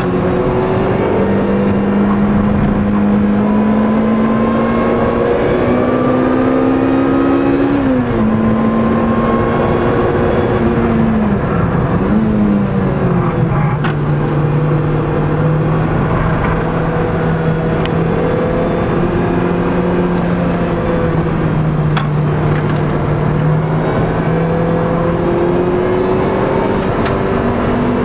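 Lotus Exige S engine heard from inside the cabin while lapping a race track, running under load with tyre and road noise beneath it. Its pitch climbs slowly, then drops sharply about eight seconds in. It dips and recovers around twelve seconds, holds lower for a long stretch, and climbs again near the end.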